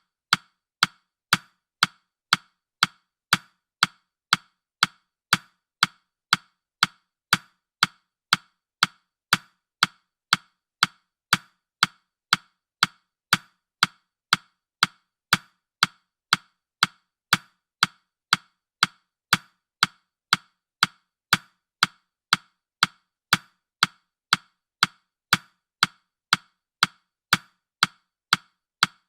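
Countdown timer's ticking sound, a sharp, clock-like tick repeating evenly about twice a second.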